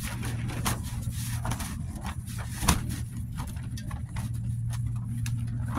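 Hammock tarp flapping and snapping hard in strong gusting wind, with a steady low rumble of wind on the microphone. One snap about two and a half seconds in is much louder than the rest.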